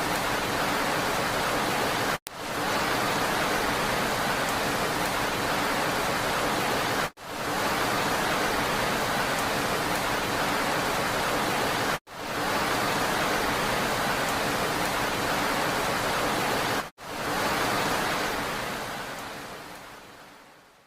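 Steady rain hiss, broken four times by a brief dropout about every five seconds, each swelling quickly back in; it fades out over the last three seconds.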